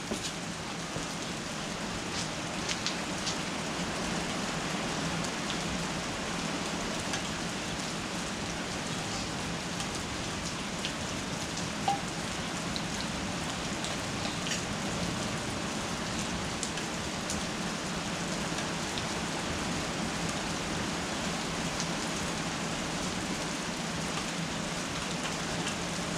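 Steady, even hiss like rain falling on a surface, with a few faint ticks.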